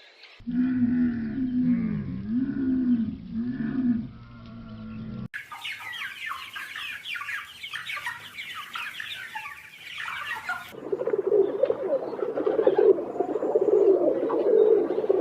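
Three farm-animal sound clips cut one after another: about five seconds of a cow's repeated mooing calls, then a chorus of many small birds chirping, then from about eleven seconds a dense low, flickering sound from a different animal clip.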